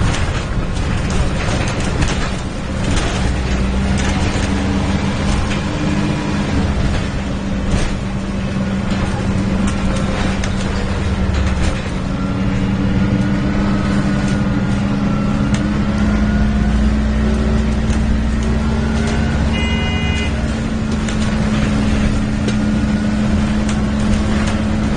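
Alexander Dennis Enviro 300 bus on a MAN chassis under way, heard from on board: the diesel engine and its cooling fan run with a steady drone and a fainter higher whine that rises and falls. A brief high beep sounds about twenty seconds in.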